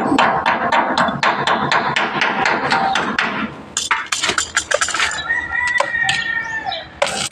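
A quick, steady beat of clicks from the opening music for the first three seconds, then a rooster crowing once, about five seconds in, its call held and then dropping at the end.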